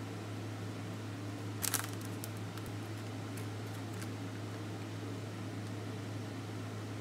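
Steady low hum of room noise with quiet food-handling sounds: a brief plastic crinkle about two seconds in, then a few faint clicks, as slices of deli ham are taken from a plastic container.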